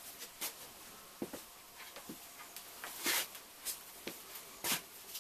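A hose being handled at a workbench: a scatter of short rustles and light knocks, the loudest about three seconds in and again near the end.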